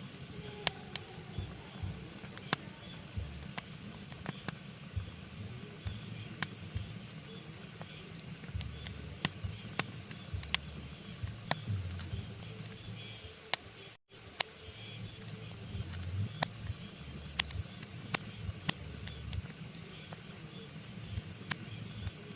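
Pine logs burning in a fireplace: a steady low rumble and hiss of flames with frequent sharp, irregular crackles and pops. The sound cuts out for an instant about halfway through.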